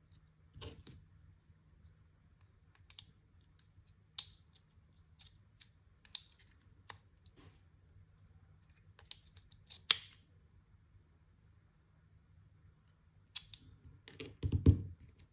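Light clicks and taps of hands handling Favero Assioma Pro MX SPD power-meter pedals and fitting a small plastic clip onto a pedal's pod. One sharp click comes about ten seconds in, and a cluster of duller knocks near the end.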